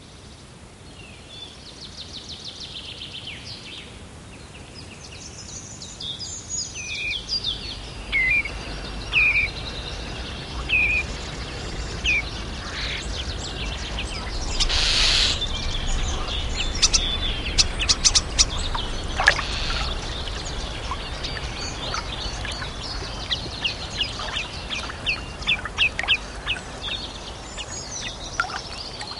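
Wild birds calling and singing, a long run of short chirps and quick trills, over a faint low rumble. A brief rushing noise comes about halfway through.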